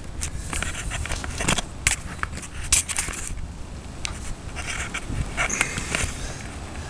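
Handling noise from a camera being picked up and repositioned: irregular clicks, knocks and rubbing, with a few sharper clicks about two to three seconds in.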